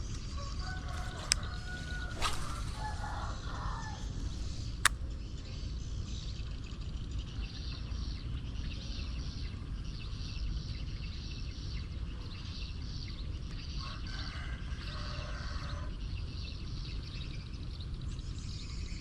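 Outdoor rice-field ambience: a steady low rumble under rhythmic, evenly repeated high chirping from insects or birds, with a few short calls. Two sharp clicks come in the first five seconds.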